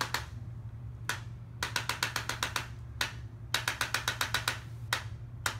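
Impulse chiropractic adjusting instrument giving rapid thrusts to the lower neck: two bursts of about ten quick clicks, each roughly a second long, with single sharper clicks in between.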